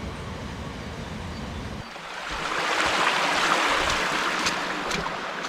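Steady rush of flowing water from a creek, growing louder about two seconds in.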